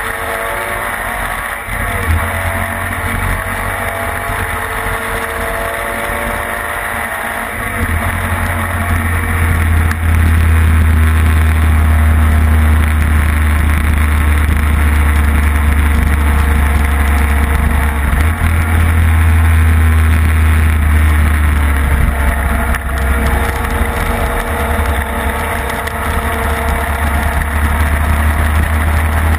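Classic racing sidecar's engine running hard on track, heard from on board with wind buffeting the microphone. Its pitch rises and falls in the first seconds, then from about eight seconds the sound gets louder, with a heavy, steady wind rumble.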